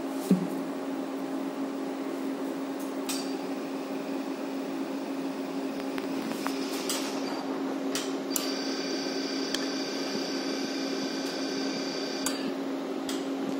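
Copper vapor laser system humming steadily, with a sharp click just after the start. A high, steady whine of several tones comes in about eight seconds in while the scanning handpiece fires its pulses onto paper, and it cuts off sharply about four seconds later. A fainter whine is heard earlier, with a few clicks.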